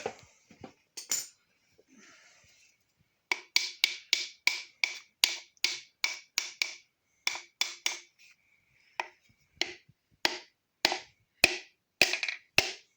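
A hammer taps a piston down through a ring compressor into the bore of an LS V8 block. It is a run of sharp, even taps with a slight metallic ring, starting a few seconds in at about three a second, then slowing to about two a second.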